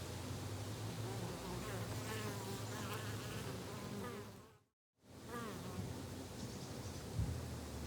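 A flying insect buzzing close by, with a steady low drone, over birds chirping in the background. The sound cuts out completely for about half a second midway, then resumes.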